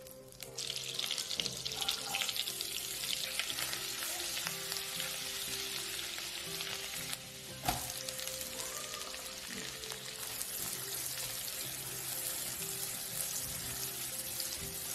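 Butter and oil sizzling in a hot nonstick wok, a steady crackling hiss. About halfway through there is a sharp knock, and diced onion goes into the pan and fries with a continued sizzle as it is stirred.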